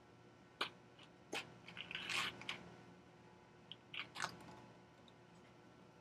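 Clicks and crackling as a 2009 iMac's LCD display panel is lifted at its edges from the case: two single clicks, a short crackly run about two seconds in, then a few more clicks around four seconds.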